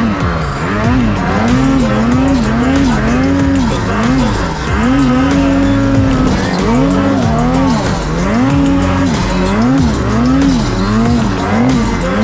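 Snowmobile engine revving up and down again and again as the rider works the throttle through deep powder, in quick blips with a few longer held revs.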